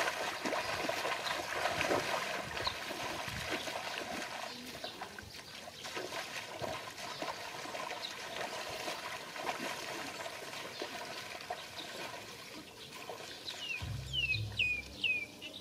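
Bare feet splashing and sloshing through shallow muddy water, steps growing fainter as the walkers move away, over trickling water. A bird chirps a few times near the end.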